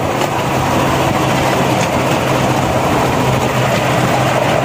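Rail trolley rolling along railway tracks: a steady rumble of its wheels on the rails, with a low steady hum underneath.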